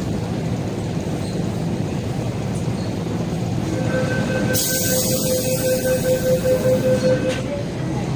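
MTR metro train rumbling steadily at an underground platform, heard from behind platform screen doors. About four seconds in a steady pitched tone and a high hiss join the rumble, then stop together about three seconds later.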